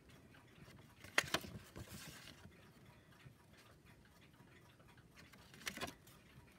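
Faint handling noise of banknotes being swapped: a click and rustle about a second in, and another near the end.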